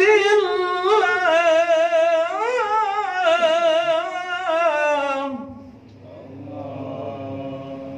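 A man reciting the Quran in melodic tilawah style into a handheld microphone, drawing out long ornamented notes whose pitch wavers and turns. About five and a half seconds in, his voice drops to a quieter, lower held note.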